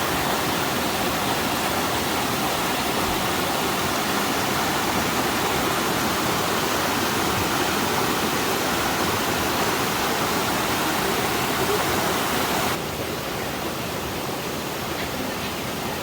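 Small mountain waterfall rushing steadily, a loud, even roar of falling water; about thirteen seconds in it drops suddenly to a quieter rush.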